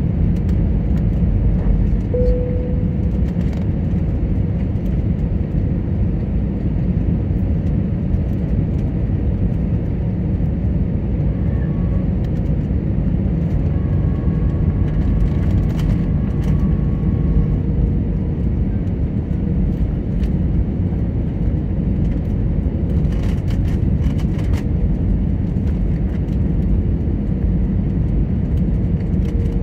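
Steady low rumble of cabin noise inside an Airbus A320neo descending on its landing approach, with a faint steady whine running under it.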